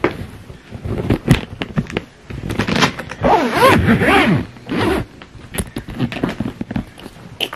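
Zipper on a packed hard-shell suitcase being pulled shut in several short, jerky stretches. The rasps are mixed with sharp clicks and knocks of the pull and hands against the plastic shell, and the longest, loudest pull comes in the middle.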